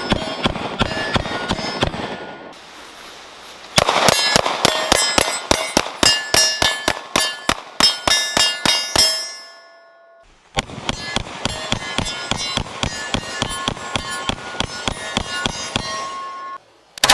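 Strings of rapid 9mm pistol fire from a Glock P80, about three or four shots a second. Steel targets ring after each hit. The firing stops twice, for a second or so, about two seconds in and about ten seconds in.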